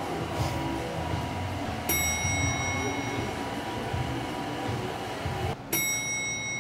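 Background music with a steady low pulse. A bright bell-like chime rings out about two seconds in and again near the end, just after a brief break in the sound.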